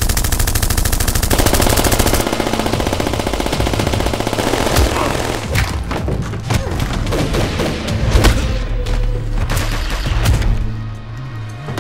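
Action-film soundtrack: a rapid burst of automatic gunfire over the first two seconds, then scattered single hits and crashes over a music score.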